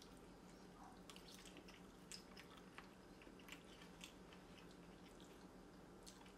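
Faint close-up chewing of a mouthful of noodles: soft wet mouth clicks and smacks scattered irregularly, over a low steady hum.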